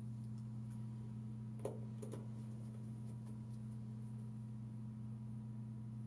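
A few light clicks of small parts being handled and fitted inside a computer case, the sharpest about a second and a half in with another just after, over a steady low hum.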